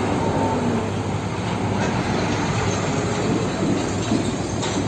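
Heavy fuel tanker truck's diesel engine running steadily as it drives past on the road, with tyre and road noise.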